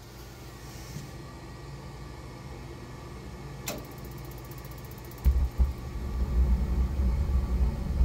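2000 Ruud Achiever gas furnace starting up: the inducer motor hums steadily. A sharp click comes about three and a half seconds in, and at about five seconds the gas burners light with a sudden, much louder low rumble that carries on as they burn.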